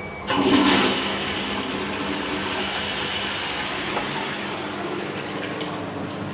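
Squat toilet flushed from a wall-mounted push-plate cistern: a sudden rush of water just after the press, loudest for the first moment, then settling into a steady rushing flow into the pan.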